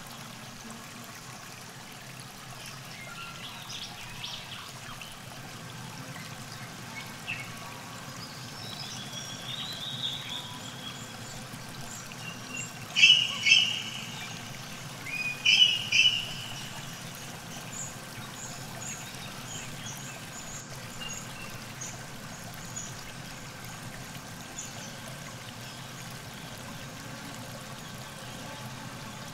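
River water trickling steadily at the bank while birds call. About halfway through come two pairs of loud, sharp bird calls, followed by a run of faint high chirps.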